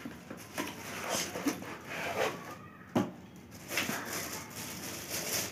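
Product packaging being unboxed by hand: irregular rustling and scraping of the box and wrapping, with a sharp click about three seconds in.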